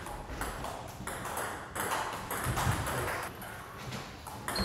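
Table tennis rally: the celluloid ball clicking off the rubber paddles and bouncing on the table, one sharp click after another about every half second.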